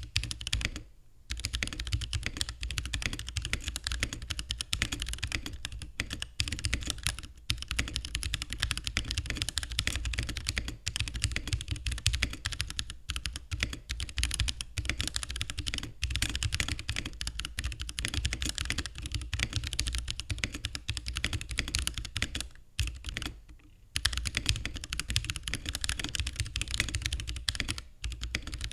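Continuous typing on a mechanical keyboard with lightly lubed Holy Panda tactile switches, mounted on a carbon fiber plate in an acrylic case: a dense run of keystroke clacks. The typing stops briefly about a second in and again for about a second near the end.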